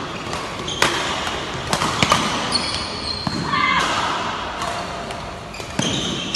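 Badminton rackets striking the shuttlecock in a doubles rally: several sharp cracks, about a second apart, echoing in a large hall. Short high squeaks between the hits, typical of court shoes on the floor.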